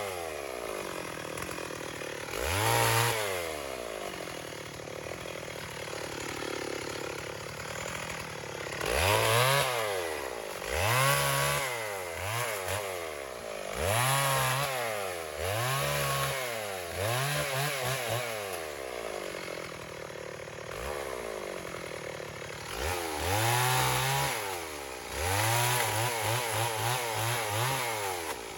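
Stihl 028 AV Super two-stroke chainsaw cutting soft box elder with a freshly square-filed chain, revving up and dropping back again and again, settling to idle for a few seconds twice. Near the end it is revved in quick short bursts.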